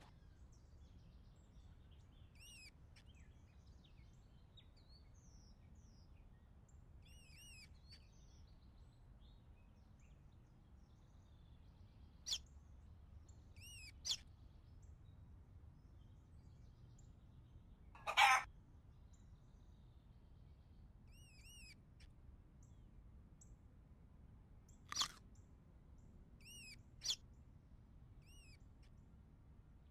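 A bird calling faintly in small groups of short arched chirps, a few times over a low steady hiss. Several sharp clicks, louder than the calls, come now and then; the loudest and longest is about two-thirds of the way through.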